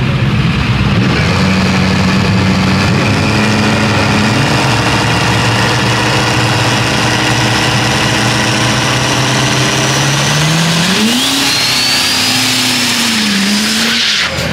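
Chevrolet pickup's engine running at steadily held revs at the drag strip's starting line, then revving up about eleven seconds in, with a high whine rising along with it. The sound cuts off abruptly near the end.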